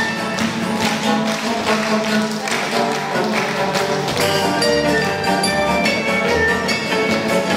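Jewish folk dance music, orchestral in sound, with a steady percussive beat.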